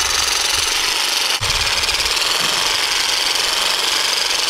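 Percussive massage gun running against the hamstrings and glutes, a steady rapid hammering buzz, with a brief dip about a second and a half in.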